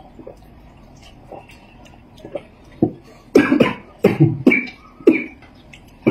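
A person coughing in a rapid run of short, harsh coughs, starting about three seconds in.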